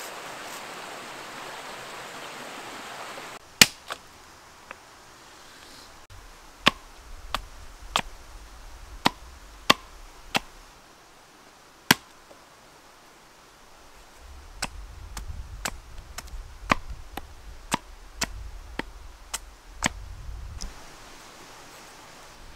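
A folding saw rasping through a green branch for about three seconds, then a long run of sharp knocks at uneven intervals as a hatchet chops green sticks against a birch-log chopping block.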